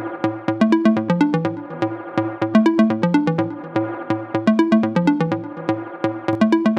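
Electronic music: a synthesizer riff of short, rapidly changing notes over a steady beat.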